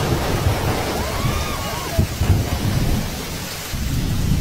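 Storm wind near a tornado buffeting the microphone: a low rumble under a steady hiss. A short pitched cry rises and falls about a second in.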